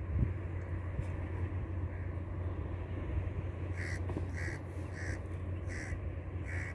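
A bird gives five short calls in quick succession, about two-thirds of a second apart, starting about four seconds in, over a steady low rumble.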